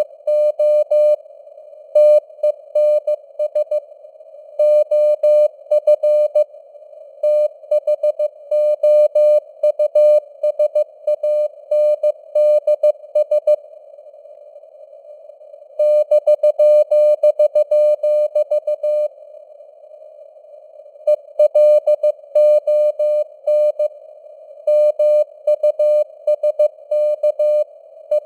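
Morse code (CW) sidetone keyed at 15 words per minute, a single mid-pitched beep sent in dots and dashes over faint simulated radio static. The keying pauses twice for about two seconds, around halfway through and again about two-thirds of the way through.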